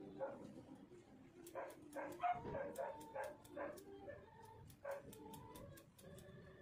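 Hair-cutting scissors snipping in a series of sharp clicks, faster in the second half, with short animal calls in the background.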